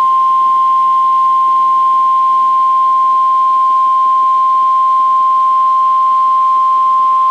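NOAA Weather Radio warning alarm tone: a single loud, steady high tone of about 1050 Hz held without a break, the signal that a severe weather warning broadcast is about to follow.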